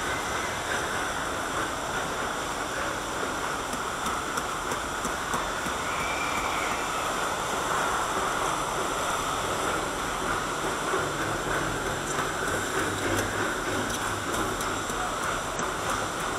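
Steady rushing of water mixed with the running rumble of a river-rapids ride's raft conveyor lift.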